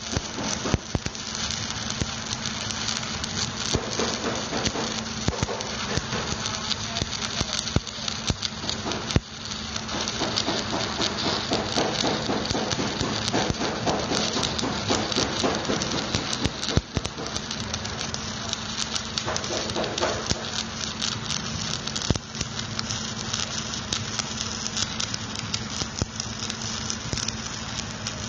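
Stick-welding arc crackling and spitting steadily as a bead is laid on a steel excavator bucket adapter, with a steady low hum underneath. The crackle dips briefly about nine seconds in.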